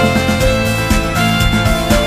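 Instrumental background music with a steady beat and sustained held notes.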